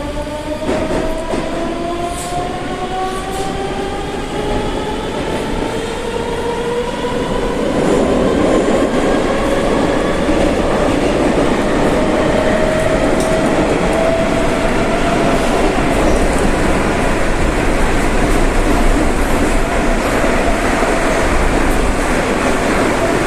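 Rusich metro train accelerating: the traction drive's whine rises steadily in pitch and then levels off as the train reaches running speed. Wheel and rail rumble grows louder about eight seconds in.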